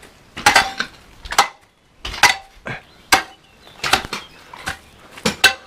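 Metal hand tools striking stone and masonry in a steady working rhythm, about one sharp clank a second, some with a brief metallic ring.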